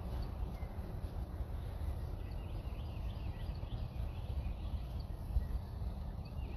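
Low rumble of wind on the microphone, with faint birds chirping in the background, including a quick run of chirps about three seconds in and more near the end.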